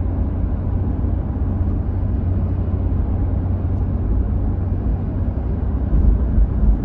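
Moving car heard from inside the cabin: a steady low rumble of road and engine noise.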